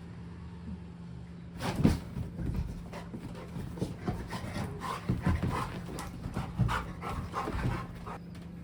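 Pet dog panting and snuffling in irregular short bursts, starting about a second and a half in, over a steady low hum.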